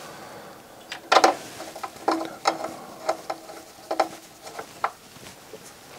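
A screwdriver and screw working at the power transformer in a MiniDisc deck's sheet-metal chassis as the transformer is screwed in: a series of irregular clicks and small metallic clinks, some ringing briefly.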